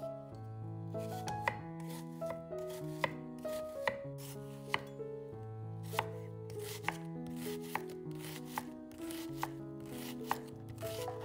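Kitchen knife chopping on a cutting board, a steady run of sharp strokes about one to two a second, over soft background music.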